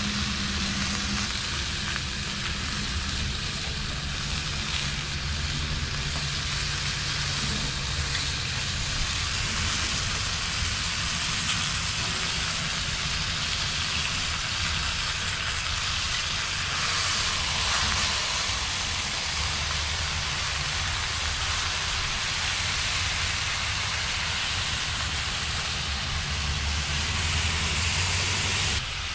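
Whole chicken sizzling in a hot cast iron skillet on an outdoor burner: a steady frying hiss with a low rumble under it.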